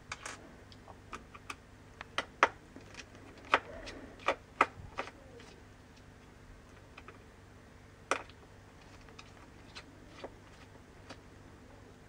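Small Phillips screwdriver clicking against the tiny screws and metal bracket that hold a MacBook Pro's hard drive as they are unscrewed. The sharp clicks are irregular: a cluster in the first five seconds, one louder click about eight seconds in, and a few faint ones near the end.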